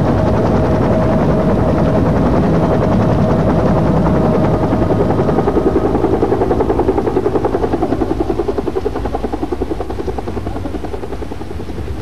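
Helicopter rotor beating in a fast, even pulse, growing fainter after about eight seconds.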